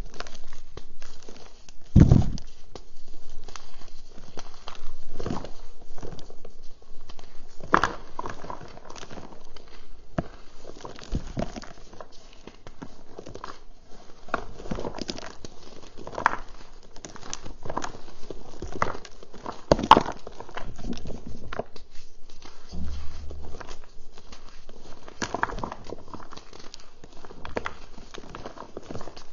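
Reformed gym chalk crushed and crumbled by hand: dry crunches and crackles one after another at an uneven pace, a few sharper ones standing out, such as about 2 s and 20 s in.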